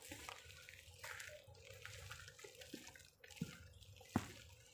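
Faint, scattered taps and thumps from a hiker's footsteps on a trail and the handling of a hand-held phone during a climb. The sharpest knock comes about four seconds in.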